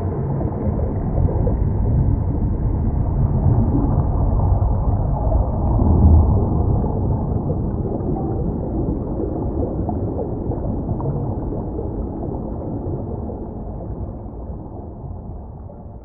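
Designed underwater ambience: a deep, muffled rumble with gurgling water. It swells about six seconds in, then slowly fades out.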